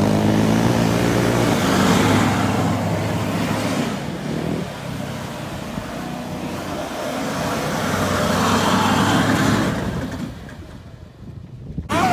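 Chevrolet Silverado Trail Boss pickup's engine revving as the truck spins doughnuts in loose dirt, its tyres throwing up dirt. The sound drops away briefly near the end.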